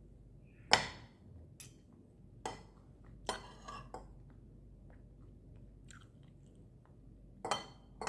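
Close-up chewing of fried rice, broken by about five sharp clicks and short scrapes of a metal spoon and fork against a ceramic plate, the loudest about a second in.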